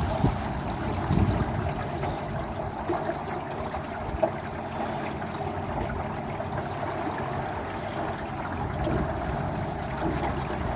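Steady rush and trickle of water along the hull of a small jon boat moving through the water.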